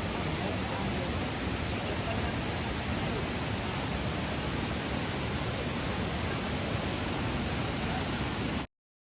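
Steady rush of falling water from MacKenzie Falls, an even hiss across the range, which cuts off suddenly near the end.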